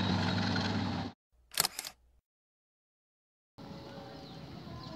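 Passenger train carriages rolling past on the track with a steady low hum, cut off abruptly about a second in by an edit; a short sharp click follows about half a second later, then dead silence, and from about three and a half seconds in a quieter steady outdoor background.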